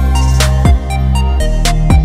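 Background music: a track with deep sustained bass notes and punchy drum hits.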